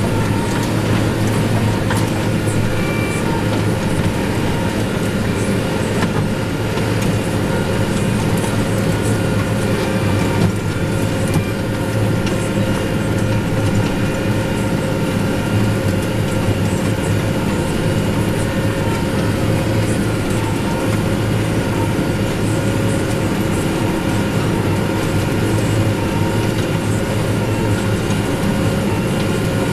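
Tractor engine running steadily under load while pulling a large square baler. The baler's machinery adds a continuous mechanical clatter.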